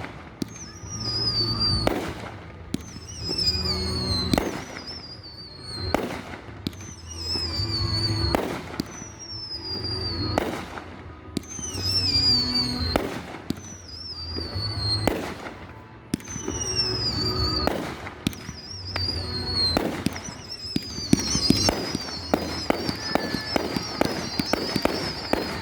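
Fireworks display: repeated whistles sliding down in pitch about every two seconds, each with sharp bangs and a low boom. A rapid run of crackling pops starts near the end.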